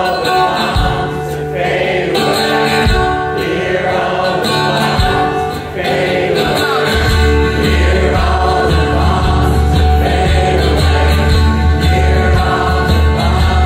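Live band playing, with acoustic guitar and drums under many voices singing together like a choir; a deep, steady bass comes in about seven seconds in.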